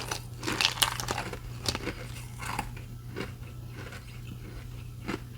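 Ice being bitten and crunched close to the microphone: a quick run of crisp crunches for the first two or three seconds, then slower, sparser chews, over a faint steady low hum.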